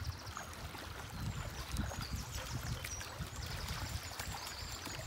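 Shallow river water trickling and splashing around wading feet over stones, with the short high chirps of small birds throughout.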